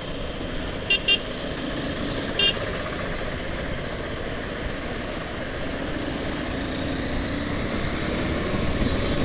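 Steady wind and road noise of a KTM 390 Adventure motorcycle being ridden through town traffic, with two quick vehicle horn toots about a second in and another short toot at about two and a half seconds.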